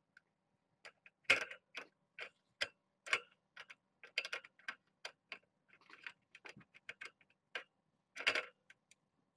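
Irregular light clicks and taps, a few a second, from cats moving about right by the microphone.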